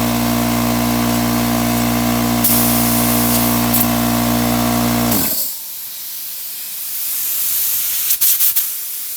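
A Craftsman 33-gallon air compressor runs steadily and builds pressure, showing that the seal repair worked. About five seconds in the motor shuts off abruptly as it reaches cut-out pressure. A hiss of air venting follows, with a few short sharp puffs near the end.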